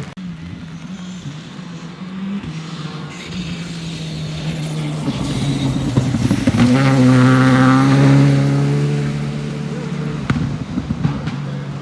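Rally car engine at high revs, growing louder as it approaches, with the pitch stepping at gear changes early on. It passes loudest about seven to eight seconds in, then fades, with a sharp click soon after.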